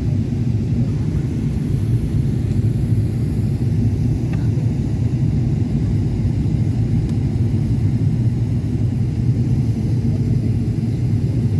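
Steady in-flight cabin drone of a Boeing 777-300ER: GE90 engine and airflow noise heard inside the rear economy cabin as a constant low rumble with a faint steady hum.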